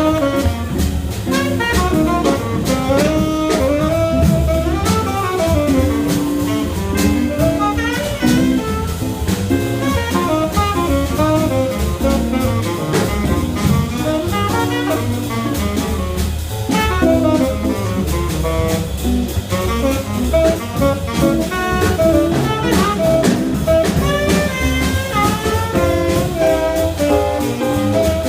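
A jazz quintet playing live: a quick, winding melody line over drums with busy cymbals and a low bass.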